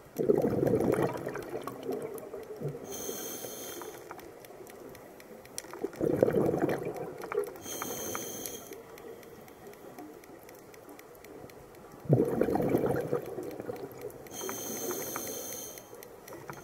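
Scuba diver breathing underwater through a regulator: three breath cycles about six seconds apart, each a loud rush of exhaled bubbles followed a couple of seconds later by a shorter high hiss of inhalation through the demand valve.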